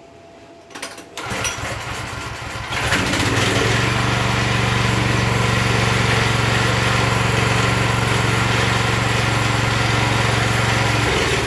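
A pressure washer's small gasoline engine starting about a second in, catching and then running steadily and loudly from about three seconds in.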